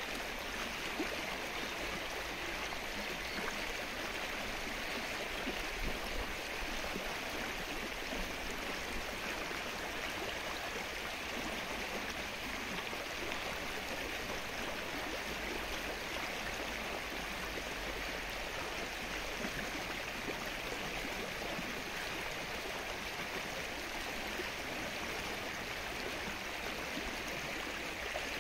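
Rain falling on the open water of a flooded lake: a steady, dense hiss of many small drops, unchanging throughout.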